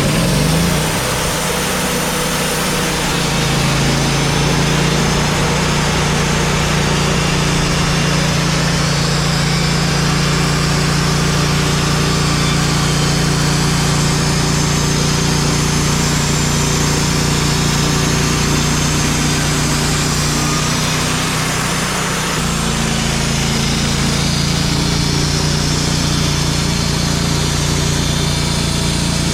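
Wood-Mizer portable band sawmill running steadily while slabbing a black walnut log. Its engine note shifts a little about two-thirds of the way through.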